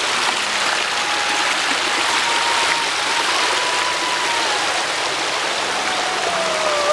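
Spring-fed creek running over stones and small cascades: a steady, even rush of water.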